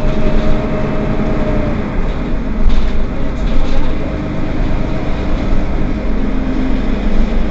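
Mercedes-Benz Citaro Facelift city bus running: a steady engine and drivetrain rumble with a whining tone that fades out about two seconds in. There are a couple of brief knocks around three seconds in, and another tone rises slightly near the end.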